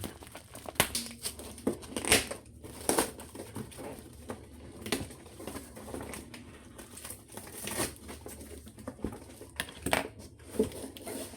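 A parcel's packaging being opened and handled by hand: irregular crinkling and rustling with sharp crackles.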